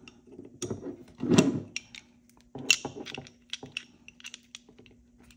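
Pistol parts clicking and knocking by hand as the Beretta PX4 Storm's barrel and captive recoil spring on its plastic guide rod are worked back into the slide. Scattered small clicks, with a louder clunk about a second and a half in and a sharp click a little later.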